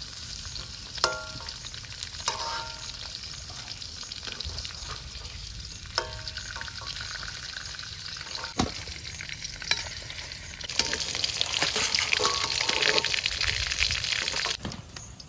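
Pork fat pieces frying in their own rendered oil in a metal pan, sizzling steadily while a metal ladle knocks and scrapes against the pan a few times as the fried pieces are lifted out. The sizzling grows louder for a few seconds near the end.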